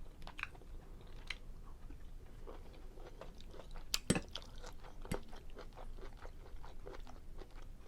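Close-miked chewing of a seafood linguine Alfredo: soft wet mouth sounds and small irregular clicks, with two sharper clicks about four and five seconds in.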